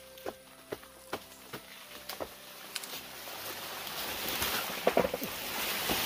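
Banana plant's soft trunk being pushed over by hand: a run of sharp snapping cracks as the stem splits, then a building rustle and swish of the stem and dry leaves as it topples, with loud crashing hits near the end as it comes down.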